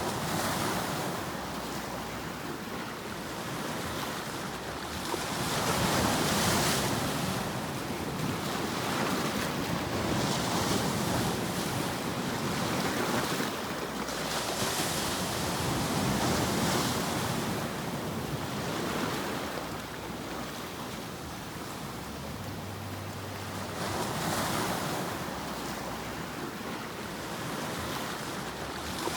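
Continuous rushing noise of a white-noise sleep track, swelling and easing every few seconds like breaking surf.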